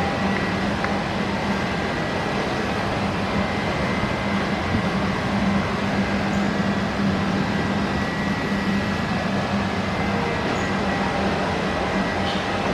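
Steady mechanical drone of workshop machinery with a constant low hum.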